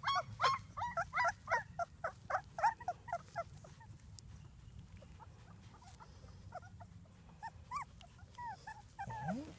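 Newborn puppy, eyes still closed, whimpering and squeaking in short high cries, many in quick succession for the first few seconds, then fewer and further apart.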